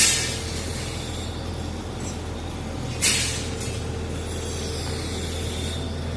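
Engine of concrete-pouring machinery running steadily, with a short, loud hiss at the start and another about three seconds in.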